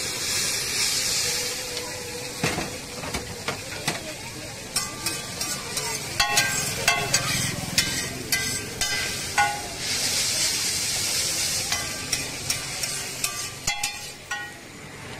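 Chow mein noodles and chopped vegetables sizzling on a large flat griddle while metal spatulas stir and scrape them. The spatulas strike the hot plate in quick runs of ringing metal clinks through the middle and again near the end, and the sizzle swells in between.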